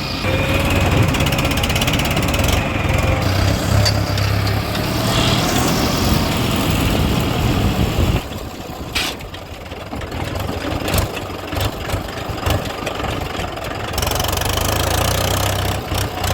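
Heavy diesel engine running with a steady low rumble; it drops quieter for several seconds about halfway through, then comes back up.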